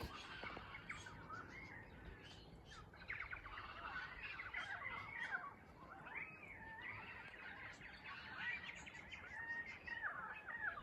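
Australian morning bird chorus of currawongs and parrots: many overlapping chirps and gliding whistled calls.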